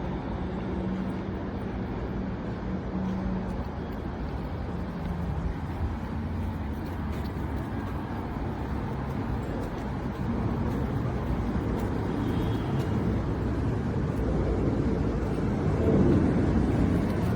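Steady outdoor background noise with a low rumble of road traffic, growing louder about ten seconds in.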